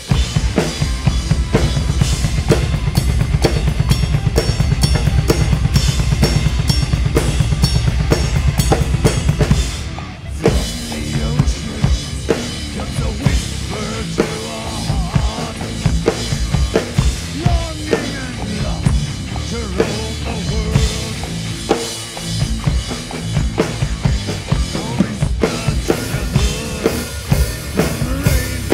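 Folk-metal drum kit played live, heard from right at the kit: a rapid, dense run of kick-drum strokes with snare and cymbals for about the first ten seconds, then after a short break a lighter beat under the band's melody.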